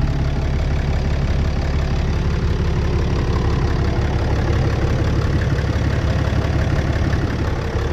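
2018 RAM 3500's turbo diesel engine idling steadily after new exhaust manifold gaskets and a turbo were fitted. No whistle from an exhaust leak stands out; the leak appears cured.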